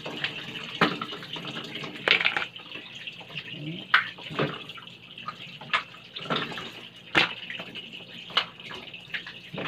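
Kitchen tap running into a stainless steel sink as seafood is washed under it by hand, a steady splashing stream. Sharp clicks and splashes break in about once a second as the shellfish are handled.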